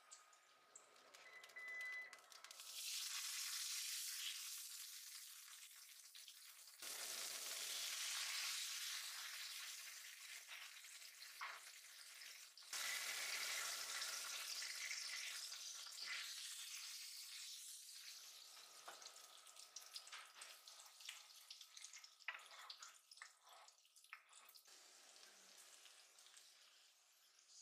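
Hot oil sizzling as food fries: lotus-root slices in a pot of oil, then fish fillets in a frying pan. The hiss starts a few seconds in, jumps louder twice, about 7 and 13 seconds in, then dies down over the second half, with a few sharp clicks of utensils against the pan.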